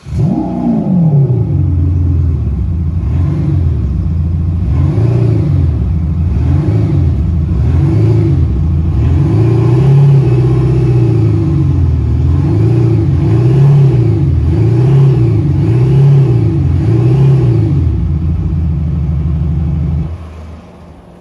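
Mercedes GLE 300 d (W167) with a Kufatec Sound Booster Pro active sound generator, putting out a synthetic V6-style engine note over the diesel as the engine is blipped again and again. The pitch rises and falls about once a second, with one longer rev in the middle. The sound starts with a quick flare and stops shortly before the end.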